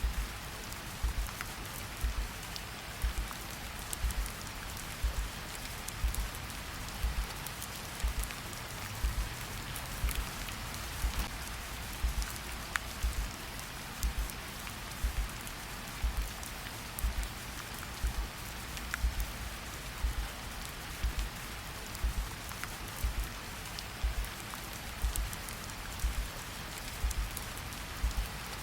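Steady rain with a slow heartbeat laid over it: a low double thump, lub-dub, about once a second.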